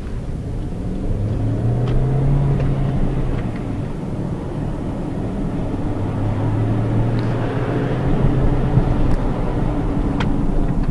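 Hyundai Tucson's 2.0-litre petrol four-cylinder engine running while driving, heard from inside the cabin. Its hum strengthens twice, over steady tyre and road noise with a few light knocks.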